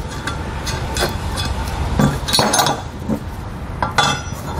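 Small metal hardware clinking: flange nuts, Allen head screws and spring clamps knocking against a metal bracket in a string of separate light clicks as they are fitted by hand.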